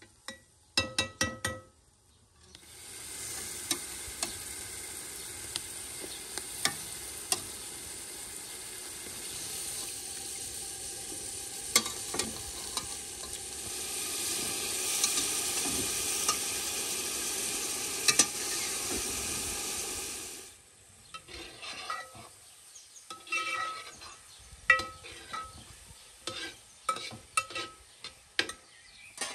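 Meat and chopped onions sizzling as they fry in a metal pot, with a metal spoon clinking and scraping against the pot as they are stirred. The sizzling starts a couple of seconds in, grows louder, then cuts off about two-thirds of the way through, leaving only the spoon's taps and scrapes.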